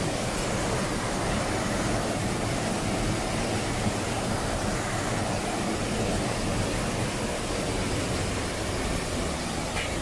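Ryuzu Falls, a rocky cascade splitting into two streams, rushing steadily.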